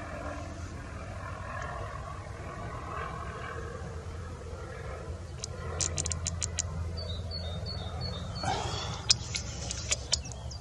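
Steady outdoor background hum with a faint hiss. In the second half comes a scatter of sharp small clicks, several close together.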